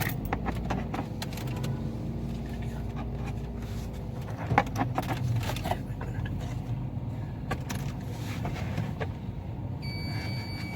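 Toyota Corolla GLI petrol engine running steadily, with scattered metallic clicks and clinks of hand tools at the battery terminal as the battery wire is taken off and refitted to clear the check-engine light. A steady high beep starts near the end.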